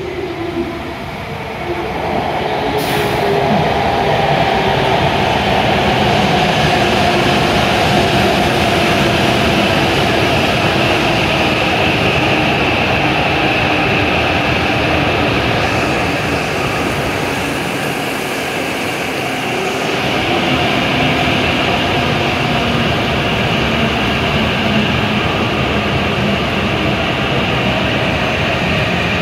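W7 series Shinkansen electric train pulling into a station platform and braking toward a stop. Its rolling rumble grows louder about two seconds in, and several steady tones in it slowly drop in pitch as it slows.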